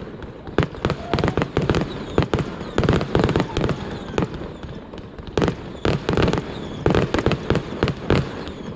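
Fireworks shells bursting in a rapid, irregular barrage, with several bangs a second in clusters.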